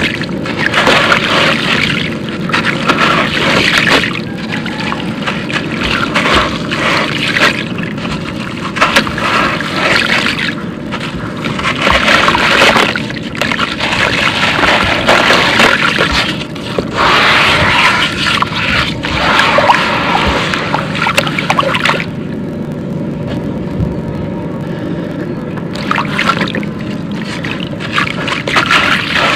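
A dry, gravelly concrete block crumbled by hand: gritty crunching as it breaks, and grit and small chunks falling and splashing into a tub of water, in uneven bursts with a calmer stretch about three quarters through.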